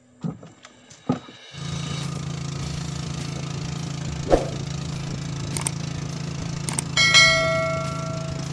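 A small boat engine starts running steadily about a second and a half in. About seven seconds in, a bright bell chime from a subscribe-button sound effect rings out and fades.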